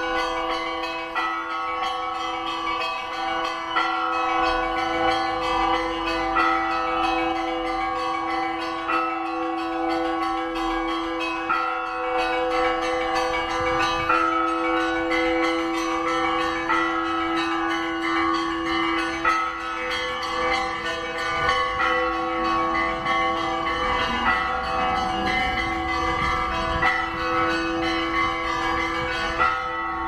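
Russian Orthodox church bells ringing (kolokolny zvon): smaller bells struck in quick, repeating patterns over the sustained hum of larger bells that ring on between strokes.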